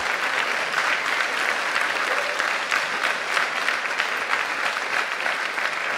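Theatre audience applauding steadily, a dense crackle of many hands clapping at the close of a talk.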